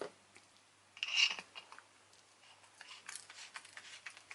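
Small plastic parts being handled: a short rustle about a second in, then a run of light plastic clicks and taps.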